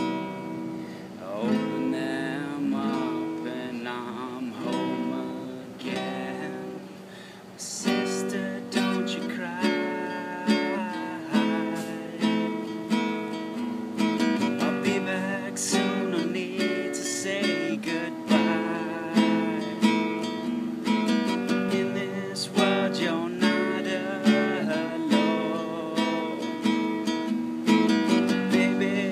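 Solo classical guitar with nylon strings: a softer passage for the first seven seconds or so, then louder strummed chords in a steady beat.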